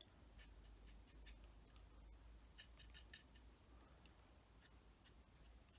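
Faint, irregular soft scratching strokes of a broad dry brush dragged across a plastic scale model's painted surface, working an oil wash into streaks, over quiet room hum.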